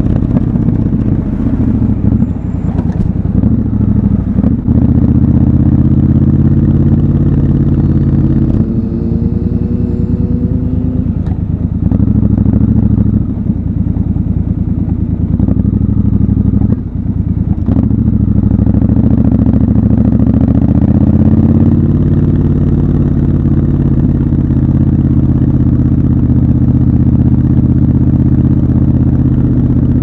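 Triumph Scrambler 1200 XC's 1200 cc parallel-twin engine running through slow city traffic. The engine note drops away briefly a few times as the throttle closes, rises in pitch about two-thirds of the way through as the bike speeds up, then holds steady.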